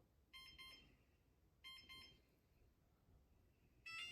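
Wyze Lock Bolt fingerprint deadbolt beeping during fingerprint enrollment: two short bursts of quick high beeps about 1.3 s apart, prompting the finger to be placed again. Near the end comes a louder chime of a different pitch pattern, which marks the enrollment finishing.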